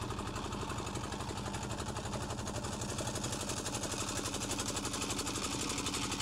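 A boat engine running steadily at an even speed, with a fast, regular beat.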